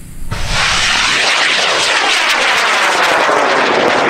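High-power rocket motor burning at liftoff: a loud, steady rushing noise with crackle that starts suddenly a fraction of a second in and carries on as the rocket climbs.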